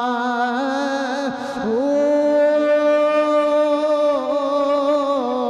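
A man singing a line of Punjabi devotional verse in long drawn-out notes, sliding up to a higher note about a second and a half in and holding it.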